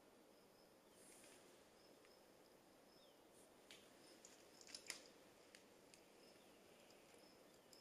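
Near silence: faint room tone with a faint high steady whine and a few soft clicks about four to five seconds in.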